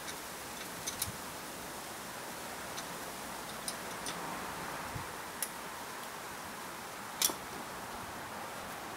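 A handful of scattered, sharp metal clicks from a wrench on the bicycle's seat-clamp bolts as the saddle is adjusted, over a steady faint hiss; the sharpest click comes about seven seconds in.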